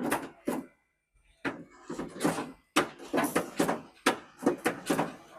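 Worn suspension joint on a Subaru's chassis being rocked back and forth, clunking about three times a second after a short pause near the start; the knocking is the sign of excessive play from failed ball joints and worn mounts.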